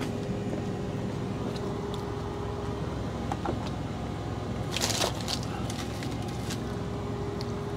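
Steady low hum of an idling truck engine, with faint small clicks and a short rustle about five seconds in.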